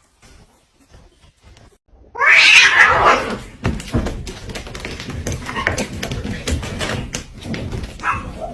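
A cat gives a sudden loud cry about two seconds in, then calls twice more, more briefly, amid knocking and scuffling.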